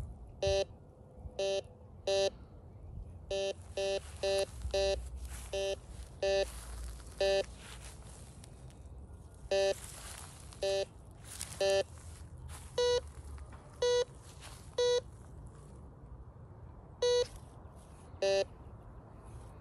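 Tacklife metal detector giving short electronic beeps, about twenty of them at irregular intervals, as its coil is swept over the ground. Some beeps are lower and some higher in pitch, the detector's target tones signalling metal under the coil.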